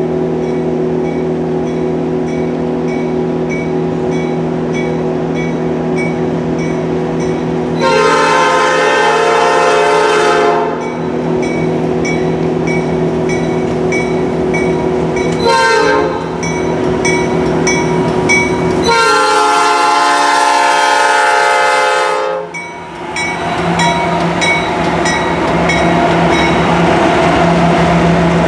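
Norfolk Southern GE AC44C6M locomotive sounding its Nathan P5 five-chime horn for the grade crossing: a long blast about eight seconds in, a short toot, then another long blast. Under it a crossing bell rings steadily. In the last few seconds the diesel locomotives and their wheels on the rails rumble past close by.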